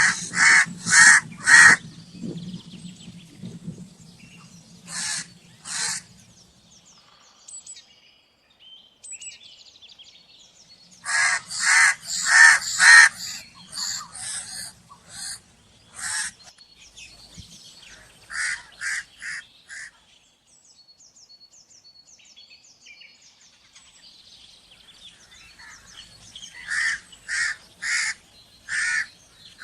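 Crow cawing in short bouts of two to five quick caws, with pauses of a few seconds between bouts.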